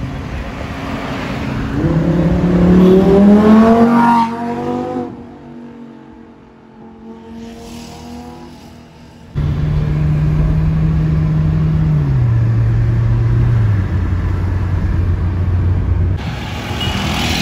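Lamborghini Huracán EVO's V10 engine accelerating hard, revs rising to a loud peak about three to four seconds in, then fading as the car pulls away. After an abrupt cut about nine seconds in, the engine runs at steady revs and drops in pitch twice as it shifts up.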